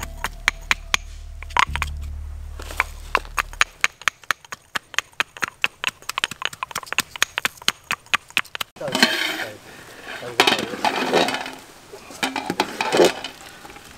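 A knife slicing green chillies in the hand, a quick run of crisp clicks, over music that fades out about four seconds in. Near nine seconds it changes to metal clatter and scraping: a lid coming off an aluminium pot and a steel ladle stirring boiled tapioca.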